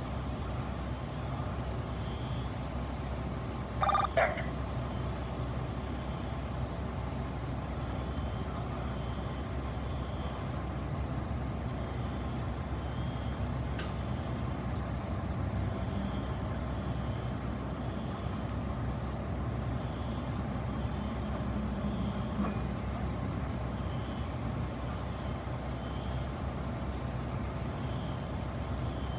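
A vehicle engine idling with a steady low rumble, a faint high beep repeating in the background, and one short loud burst about four seconds in.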